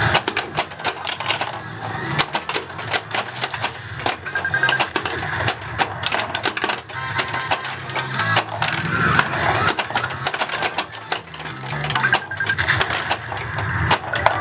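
Bally Safe Cracker pinball machine in play: rapid, irregular clicks and clacks of flippers, solenoids and the ball striking targets, over the machine's electronic music and sound effects.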